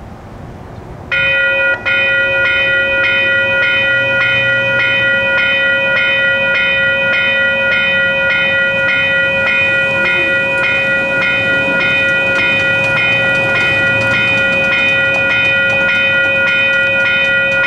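Railroad grade-crossing warning bell starting up about a second in and ringing on in a steady, evenly repeated rhythm as the crossing gate comes down: the crossing has been activated by an approaching train.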